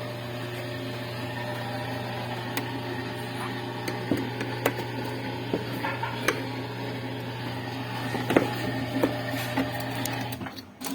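Whirlpool washing machine running with a steady hum and scattered clicks and knocks, cutting off shortly before the end.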